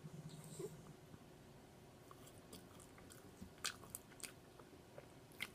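Faint mouth sounds of a person eating: soft chewing with a few sharp mouth clicks around the middle and near the end, and a short low hum right at the start.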